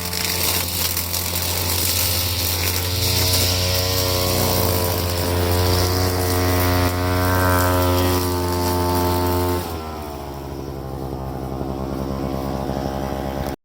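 Two-stroke brushcutter engine running at high revs, its pitch climbing a few seconds in and holding, then dropping back toward idle near the end.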